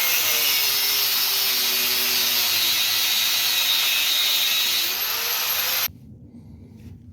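A handheld power cutting tool slicing a bracket in half, with a loud hiss over a motor tone that sags under load and climbs back before it stops suddenly about six seconds in.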